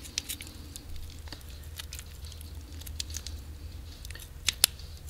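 Kitchen scissors snipping at a raw chicken wing's joint, with small wet squelching and crunching clicks as the blades work through the meat and cartilage; two sharp snaps about four and a half seconds in.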